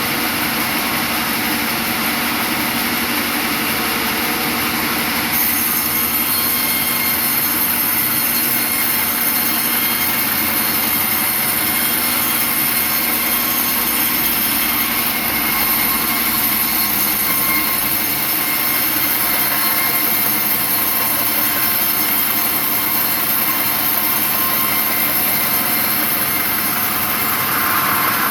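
Sawmill saw running steadily, with a bright high hiss that strengthens about five seconds in over a steady low machine hum.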